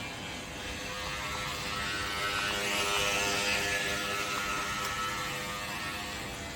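Small electric motors of a toy RC tugboat whirring with a steady hum, swelling to its loudest about three seconds in and easing off again.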